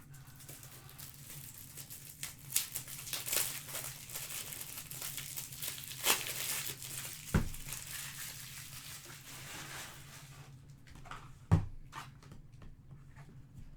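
Trading-card pack wrappers crinkling and tearing as packs are opened and cards handled, a busy crackle that eases off near the end. Two dull thumps break through, one about halfway and a louder one near the end.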